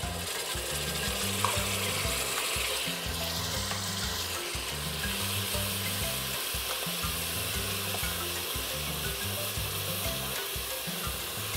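Wet curry paste (curry powder soaked in water) sizzling steadily in hot oil with garlic in a stainless steel pot, stirred with a wooden spoon.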